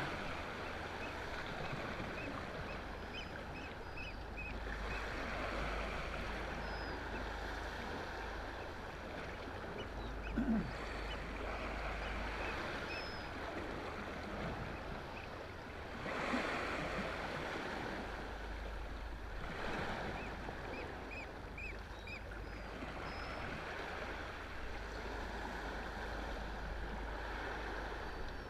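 Steady wash of calm sea water against a rocky shore, with short runs of faint high chirps a few seconds in and again about three-quarters of the way through, and a single brief thump about ten seconds in.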